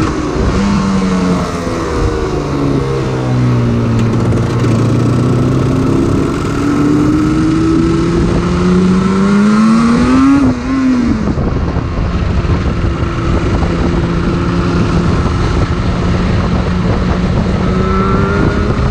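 Yamaha RZ250's two-stroke parallel-twin engine under way: the revs dip, then climb steadily for several seconds before dropping sharply at a gear change about halfway through, after which it runs at a steady pitch and picks up slightly near the end. Wind rush on the microphone runs underneath.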